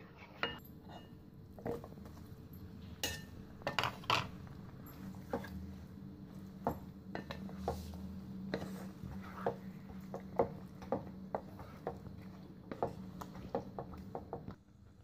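Spatula knocking and scraping against a nonstick frying pan while butter and raw mutton pieces are stirred, many short irregular clicks with a cluster of louder knocks about three to four seconds in. A steady low hum runs underneath.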